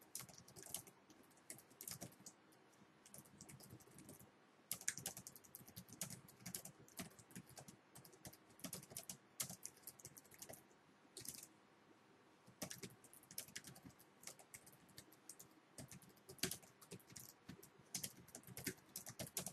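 Faint computer keyboard typing in quick runs of keystrokes, broken by short pauses.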